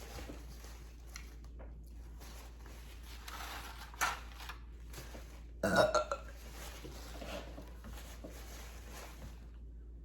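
A woman burps once, short and loud, a little past halfway through, with a sharper brief sound shortly before it.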